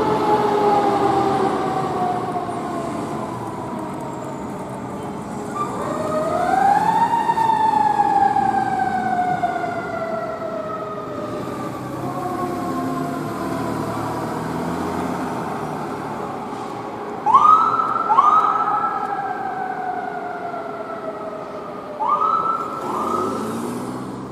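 Fire department emergency vehicle sirens as the rigs respond from the station. One siren winds up once and then glides slowly down in pitch over about ten seconds. Later come two pairs of short, sharp rising whoops, over the sound of vehicle engines.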